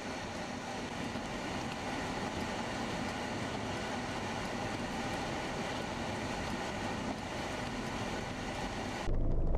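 Steady vehicle noise: a running engine's hum under road and wind noise. It cuts off abruptly near the end into a louder, deeper rumble.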